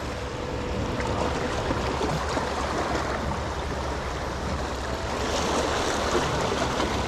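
Small waves washing and lapping steadily against the stone blocks of a jetty, with wind rumbling on the microphone.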